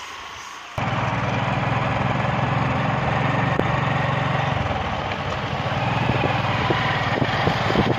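Motorcycle engine running steadily while riding along a road, starting abruptly about a second in and holding an even drone throughout.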